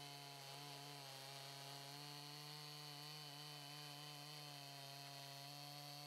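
Faint two-stroke Makita gas chainsaw held at full throttle, its chain cutting steadily through a stack of 4x4 lumber at an even pitch.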